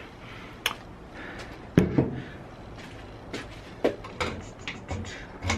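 Door handling: a series of clicks and knocks, the loudest a double knock about two seconds in.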